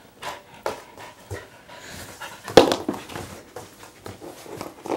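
A puppy sniffing and snuffling with its nose pushed into a blanket, in short noisy bursts about a second apart. A single sharp knock about halfway through is the loudest sound.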